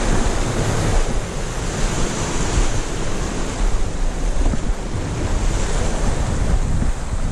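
Sea surf breaking against a rocky shoreline, with steady wind buffeting the microphone.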